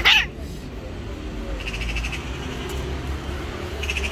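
White cat giving a short, loud angry yowl at the very start, cut off within a fraction of a second as it twists away from a petting hand. Two faint rasping, pulsing calls follow, about one and a half seconds in and near the end, over a low steady rumble.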